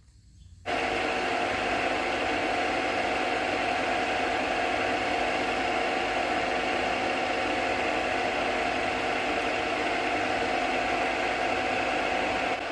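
Metal lathe running steadily, turning a steel stud down to finished size, starting abruptly under a second in from near silence.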